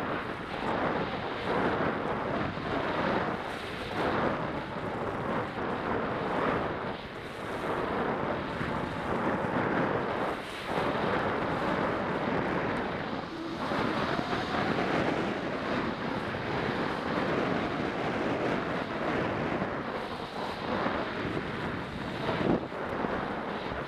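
Wind rushing over the microphone of a skier's body-worn camera during a downhill run, mixed with skis scraping over hard-packed snow. The noise swells and eases every second or two with the turns.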